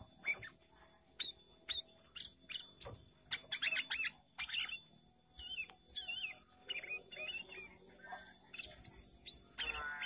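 Sooty-headed bulbul singing a busy, varied song: a quick run of sharp chirps and wavering whistles one after another, with a harsher buzzy note near the end.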